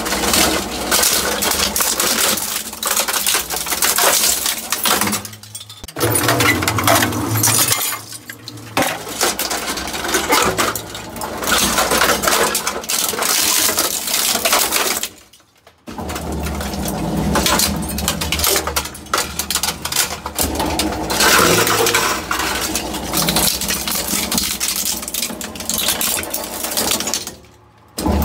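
Twin-shaft shredder's steel cutters tearing through a plastic printer: dense cracking and snapping of plastic with metallic clinks and clatter, broken by a few short lulls.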